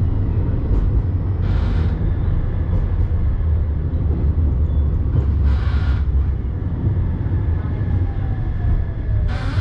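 Tram running, heard on board: a steady low rumble of the car on the rails, with three short hisses spaced about four seconds apart and a whine that falls in pitch near the end.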